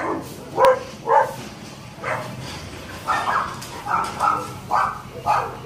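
Pet dogs barking in a series of short barks, coming faster toward the end.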